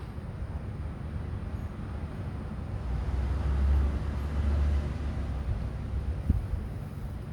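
A low, steady rumble that swells louder from about three to five seconds in, with a single short knock near the end.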